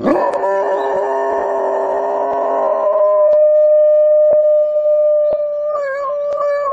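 Dog howling: a sudden loud onset with several pitches sounding together, then one long, steady howl that wavers near the end and cuts off abruptly. Faint ticks come about once a second under it.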